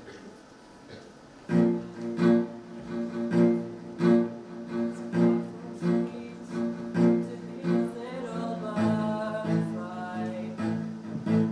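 Recorded instrumental accompaniment starts about a second and a half in: plucked guitar chords in a steady pulse over low bowed strings.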